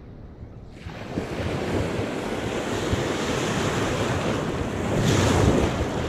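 Surf washing in over the beach, with wind buffeting the microphone. The rush of water starts about a second in and swells to its loudest near the end.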